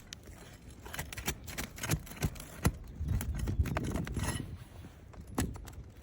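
Scattered sharp clicks and knocks with a stretch of scraping and crunching about three to four seconds in: hand work and movement on brittle asphalt roof shingles while breaking their seals for a repair.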